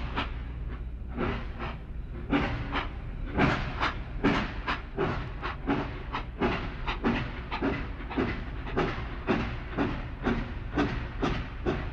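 Steam locomotive sound effect: an engine chuffing steadily at about two chuffs a second, each a hissy puff of exhaust, over a constant low rumble.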